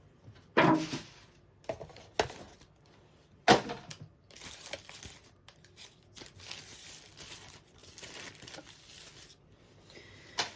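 Packaging and items being handled and tossed aside: a few sharp knocks and clatters in the first few seconds, then steady rustling and crinkling of wrapping.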